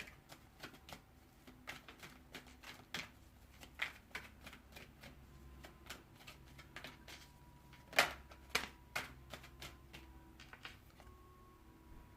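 A deck of oracle cards being shuffled and handled: a run of irregular soft card flicks and taps, with two sharper snaps about eight seconds in.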